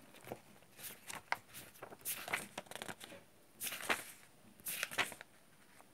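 Paper sheets being handled and pages turned, rustling in a handful of short bursts about a second apart.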